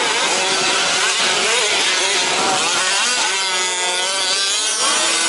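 Several 1/5-scale RC trucks' small two-stroke petrol engines racing at once, their pitches rising and falling as they rev and back off through the corners.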